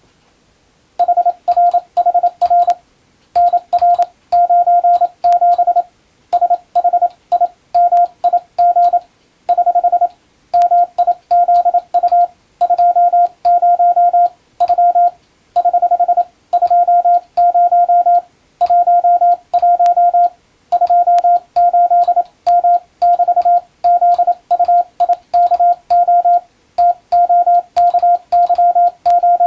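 Morse code tone at one steady pitch keying out dots and dashes in groups, with short pauses between characters and words, starting about a second in. Each tone starts and stops with a small click.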